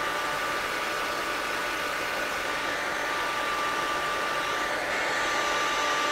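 Handheld hair dryer with a diffuser attachment running steadily, blowing into curly hair: an even rush of air with a steady high whine.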